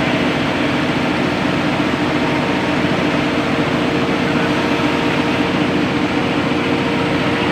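Starting air compressor running steadily: a loud, constant mechanical drone with a fast, even pulsing and a steady hum.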